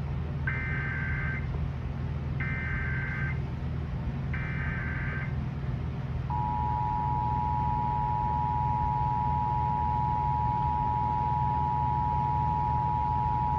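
Emergency Alert System test signal. It opens with three short bursts of SAME header data, a buzzy two-tone digital chirp, each under a second long and about two seconds apart. About six seconds in, the steady two-tone EAS attention signal starts and holds, marking the statewide monthly test.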